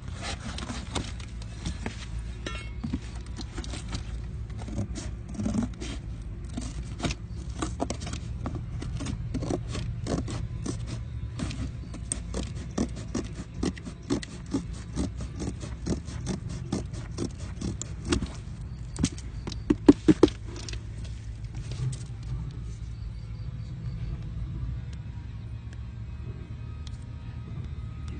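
Rapid, irregular clicks and scraping of small hard objects being handled, with a few louder knocks about twenty seconds in, over a steady low hum; the clicking thins out in the last few seconds.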